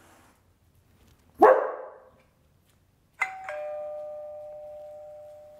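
A German Shepherd barks once, loudly. About two seconds later a two-tone ding-dong doorbell chime sounds, a higher note then a lower one that rings on and slowly fades. The doorbell is being rung over and over to desensitize the dogs, and their barking is tapering off.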